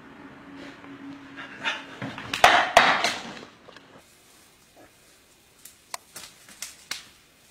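A loud burst of scuffling, breathy noise with two sharp knocks, then a string of sharp snaps and cracks of twigs as a bull moose thrashes its antlers in brush.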